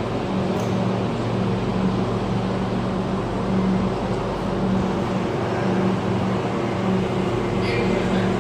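Factory machinery running with a steady low hum that swells and fades slightly.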